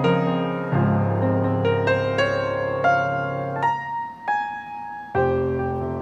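Background piano music: single notes struck over held chords, with the low notes falling away for about a second before a new chord comes in near the end.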